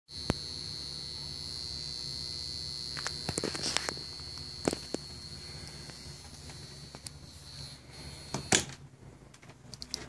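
Schiit Magni's plug-in AC adapter buzzing with a steady mains hum and a high-pitched whine, which the owner takes for a defective adapter. A few clicks come as it is handled, then a loud click about eight and a half seconds in as it is pulled from the outlet, and the whine stops.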